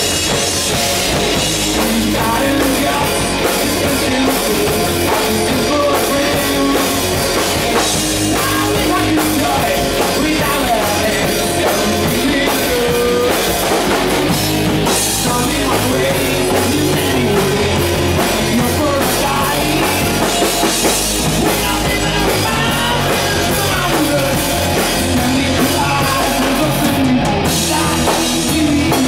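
Hard rock band playing live and loud: two electric guitars, a bass guitar and a drum kit, going on without a break.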